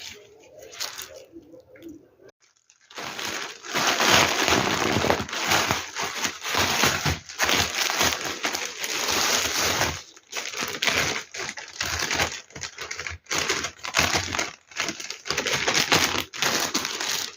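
Plastic packaging crinkling and rustling as it is handled and opened. The sound starts about two seconds in and continues unevenly with short pauses.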